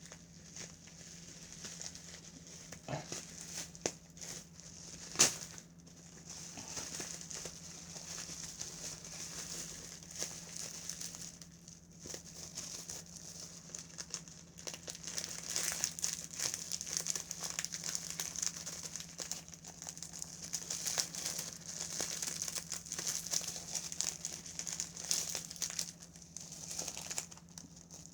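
Crinkling and crumpling of a mailed package's wrapping as it is worked open by hand, with a sharper click about five seconds in and busier crinkling in the second half.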